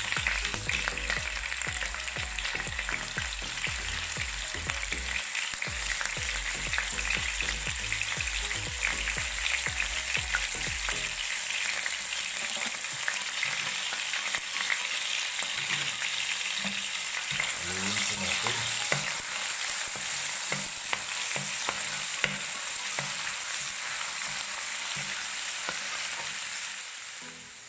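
Garlic sizzling and crackling in hot chicken fat and oil in a pan as it sautés, with a steady spattering hiss full of small pops. A low hum underneath stops about eleven seconds in.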